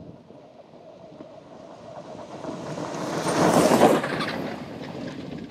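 Electric off-road race car with twin DC motors driving fast past on dirt. Tyre, gravel and drivetrain noise builds, peaks nearly four seconds in as the car goes by, then fades, with no combustion-engine note.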